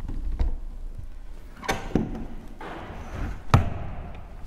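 Caravan entry door being pushed into its cutout in the wall panel: several knocks and thumps as the door frame bumps the panel, with a short scraping rustle between them. The loudest knock comes about three and a half seconds in.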